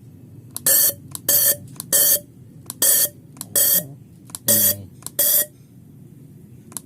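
Toyota 4A-FE fuel injector pulsed on an injector cleaning machine: seven short, loud sprays, each with a buzz, spaced about half a second to a second apart, with small clicks between and a pause near the end. The injector is being cleaned because its dirty nozzle tip leaks and sprays badly.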